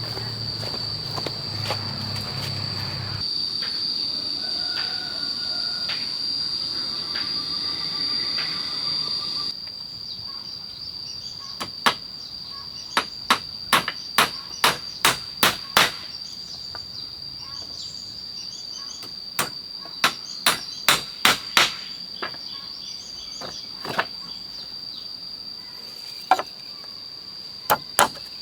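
Hammer blows in quick runs of about two a second, starting about twelve seconds in and coming again in a shorter run and a few single strikes later. A steady high-pitched drone of insects runs underneath.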